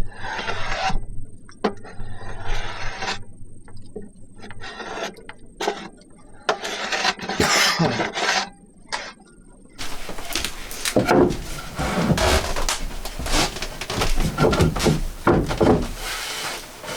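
Hand tool scraping and rasping on wood in separate strokes about a second long. After a cut about ten seconds in, the strokes come faster and denser, mixed with light knocks.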